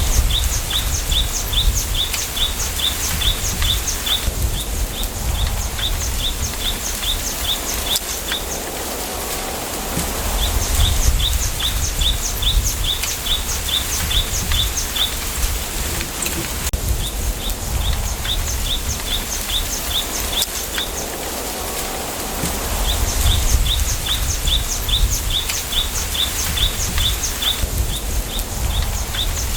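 Wind through a bamboo grove: a steady rustling hiss with low rumbling gusts. Three times a run of high, quick chirps, about five a second for four to five seconds, rises over it.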